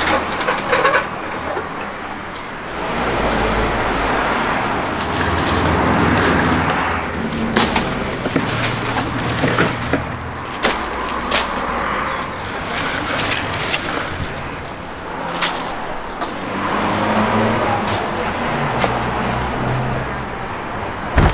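Road traffic passing, swelling and fading, with scattered sharp knocks and clatters from a hand cart and from crushed ice in a cooler as bagged chickens are lifted out.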